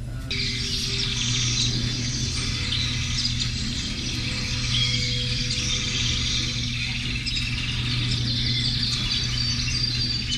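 Recorded nature ambience of many birds chirping and insects trilling, played as a diorama's sound effect; it cuts in abruptly right at the start, over a steady low hum.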